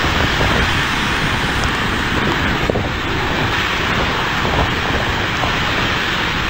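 Storm-force wind buffeting the microphone in a steady rush with a fluttering low rumble, over the sound of vehicles driving along a wet, spray-swept road.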